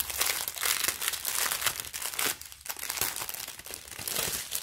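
Thin clear plastic bag crinkling as hands handle it: a dense run of crackles, strongest in the first two seconds, with another flurry near the end.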